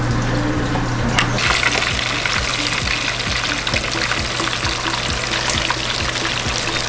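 Breaded mackerel pieces deep-frying in hot oil in a pan, a dense, steady crackling sizzle that starts about a second and a half in.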